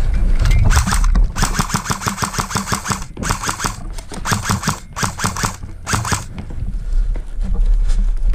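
Airsoft electric rifle firing full-auto: about six bursts of rapid, evenly spaced shots within roughly five seconds, the second burst the longest, at about a second and a half.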